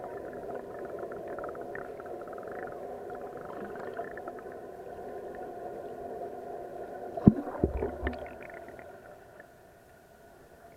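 Muffled underwater sound picked up by a camera below the surface: a steady droning hum with a few sharp knocks about seven seconds in, growing fainter near the end.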